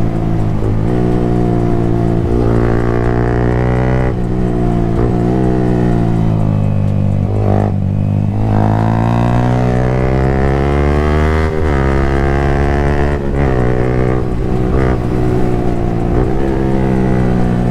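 Yamaha MT-15's single-cylinder engine through an aftermarket Akrapovic exhaust, under throttle: the engine note rises and falls several times as it pulls and eases off, with a marked dip about eight seconds in.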